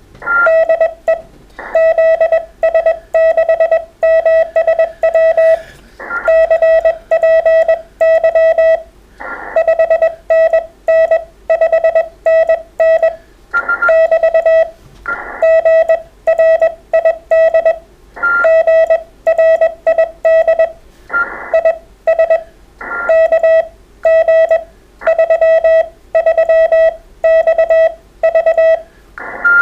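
Morse code (CW) from a ham radio transceiver: a single steady beep keyed on and off in quick dots and dashes. Short bursts of receiver hiss come in between runs of the code.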